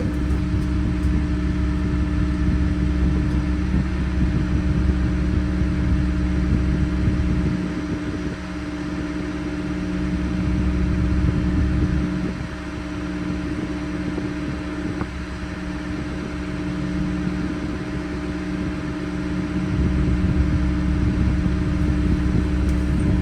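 Farm tractor's diesel engine running steadily. Its deep rumble drops away at about 8 and 12 seconds in and comes back, as the revs or load change.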